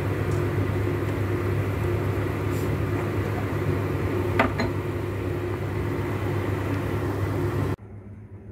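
Stockpot of soup at a rolling boil, bubbling over a steady hum, with one sharp click about four and a half seconds in. The sound cuts off suddenly near the end.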